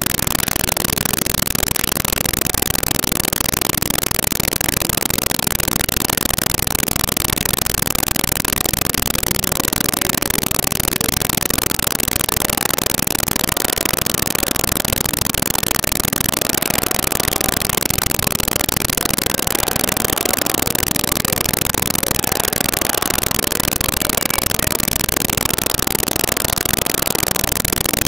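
Steady loud hiss of static noise that masks the whole soundtrack, with no distinct events; the recording's audio is defective.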